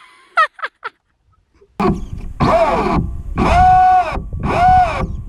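A person groaning and wailing in drawn-out cries of dismay: three short cries, a brief pause, then four long falling wails over a low rumbling noise.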